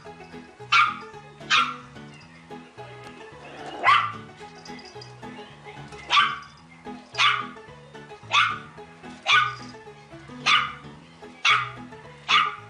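Puppy barking at its own reflection in a mirror: about ten sharp, high barks, mostly about a second apart, with longer gaps in the first half. Background music plays underneath.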